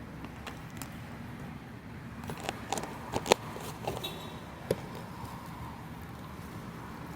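Steady outdoor background noise of light rain, broken by a handful of sharp clicks and taps about two to five seconds in, one of them much louder than the rest.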